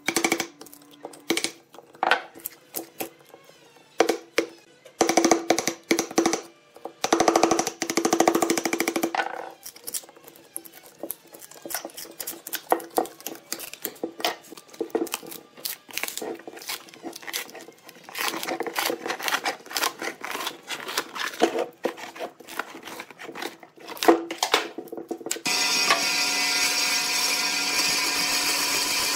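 Irregular knocks, scrapes and crackling as a tape-wrapped sheet-metal mould is tapped with a hammer, slit with a utility knife and peeled off a cast epoxy block. About 25 s in, a band saw starts and runs steadily.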